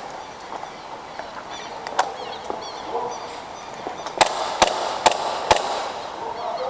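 Airsoft gas pistol shots: a single sharp crack about two seconds in, then four quick cracks about half a second apart near the middle. Small birds chirp in the background.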